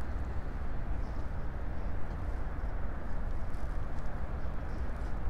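Steady low rumble with a faint hiss: outdoor background noise, with no distinct events.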